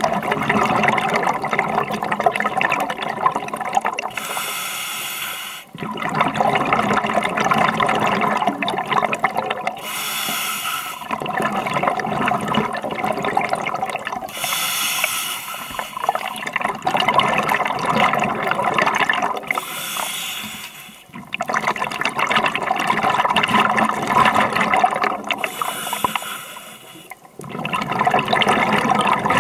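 Scuba diver breathing through a regulator underwater: a short, high hiss with each inhale, five times about every five to six seconds, alternating with the longer crackling, bubbling rush of each exhale.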